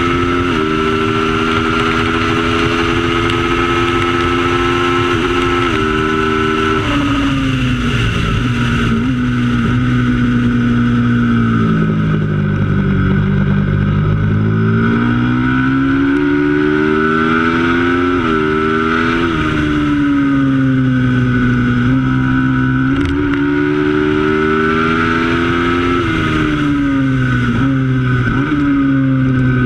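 Racing motorcycle engine at full race pace. It holds high revs with sudden drops in pitch at gear changes early on, then the revs fall and climb again several times as it slows and accelerates.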